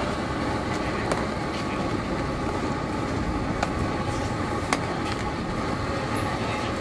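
Steady rushing background noise with a few short, sharp clinks spread through it.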